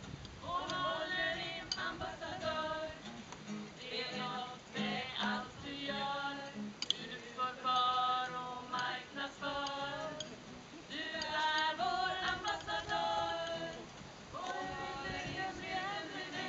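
A small group of mostly women's voices singing a song together, accompanied by an acoustic guitar. The singing comes in phrases with brief pauses between them.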